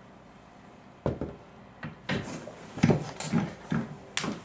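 A hollow-core bifold closet door and its pivot hardware being handled and fitted into place: one sharp knock about a second in, then a run of irregular wooden knocks and rattles.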